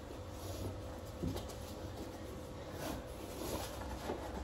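Faint rustling and scratching of a wallpaper sheet being pressed and smoothed against the wall by hand, with a few light taps, over a faint steady hum.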